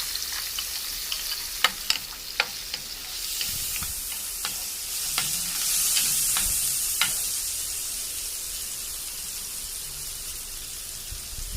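Chopped garlic sizzling in hot oil and butter in a pan, stirred with clicks of a utensil against the pan through the first seven seconds or so. The sizzle swells about halfway through, then settles back to a steady hiss.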